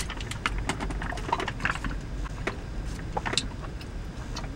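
Scattered soft clicks and mouth sounds of someone sipping a smoothie through a straw from a plastic cup, over the low steady rumble of a car.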